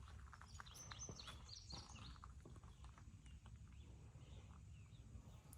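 Near silence with faint, short bird chirps in the first couple of seconds and a few soft clicks over a low rumble.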